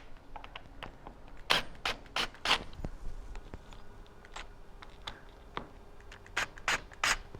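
A tarp and its fastenings being handled as it is taken down: scattered short scrapes, rustles and clicks, about nine in all.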